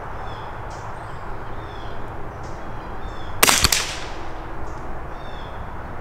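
A single rifle shot about three and a half seconds in, from a Ruger 10/22 firing subsonic .22 LR (CCI Standard Velocity). It is the rifle's cold-bore first shot of a sighting group.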